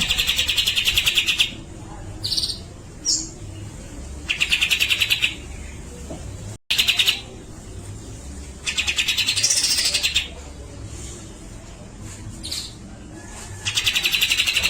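Cucak jenggot (grey-cheeked bulbul) singing its fast rattling chatter in four bursts of about a second each. Short single notes come between the bursts, and a rising and falling whistle rides over the third burst.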